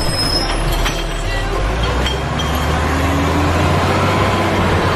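Large plastic toy trucks towed in a line over concrete paving blocks, their hard plastic wheels rolling loudly and clattering over the joints.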